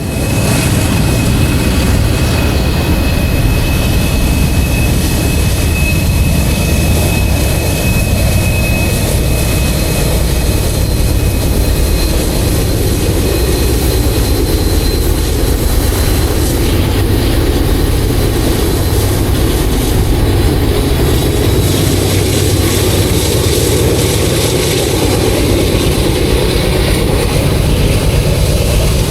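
Freight train rolling past: a loud, steady rumble of locomotives and cars, with a thin high squeal held through about the first half.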